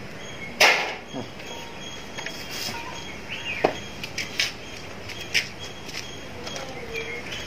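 Par-fried potato sticks being tipped into a mixing bowl: a few sharp knocks and clatters, the loudest about a second in and another a few seconds later.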